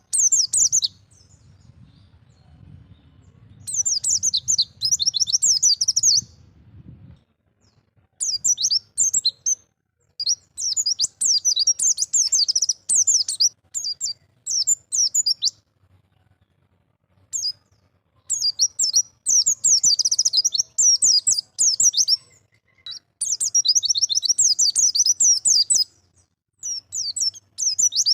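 White-eye (pleci) singing a wild-type 'ngalas' song: phrases of rapid, high, twittering chirps two to three seconds long, broken by short pauses. A faint low hum sits under the first few seconds.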